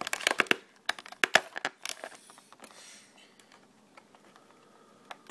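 Plastic toy packaging being handled and pulled open: a quick flurry of sharp clicks and crackles in the first two seconds, then a short faint rustle.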